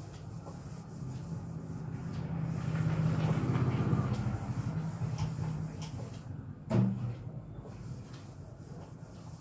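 A cloth rubbing over a whiteboard as it is wiped clean. The rubbing swells to its loudest in the middle and then fades, with one short, louder knock about two-thirds of the way in.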